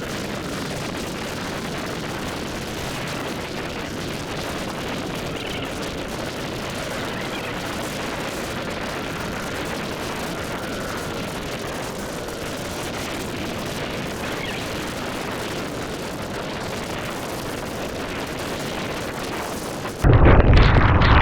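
Heavy rain recorded through an action camera's built-in mic: a steady, even hiss of rain. About a second before the end it cuts suddenly to a louder, duller rumble.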